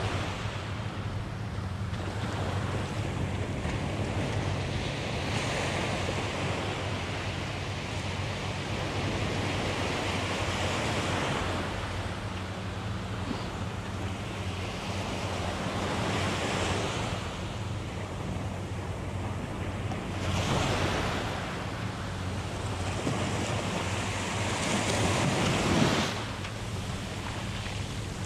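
Small waves running up a dark-sand beach, each wash rushing in, swelling and fading every few seconds, with wind on the microphone. Near the end the loudest wash cuts off sharply.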